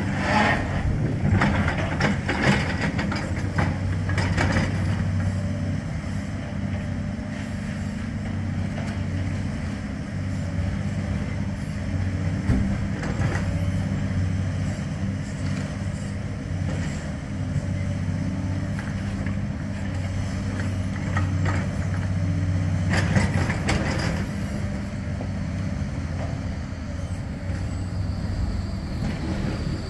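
A Bombardier Flexity 2 tram approaching slowly along the tramway and drawing alongside, over a steady low drone of engines. A faint high whine comes in near the end as the tram passes close.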